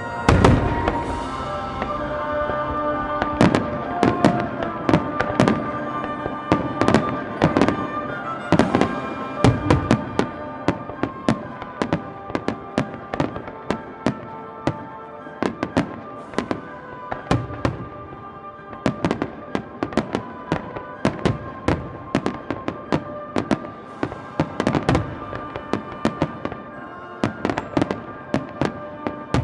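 Aerial firework shells bursting in a rapid, irregular series of sharp bangs, with music playing underneath.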